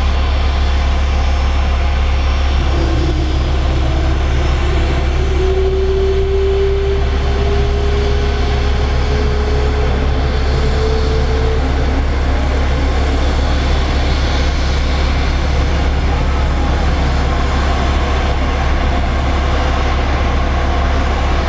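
Embraer ERJ-190AR's two GE CF34-10E turbofans running, a steady loud rumble and rushing hiss. From a few seconds in, a whine rises slowly in pitch for about nine seconds as the jet starts to taxi.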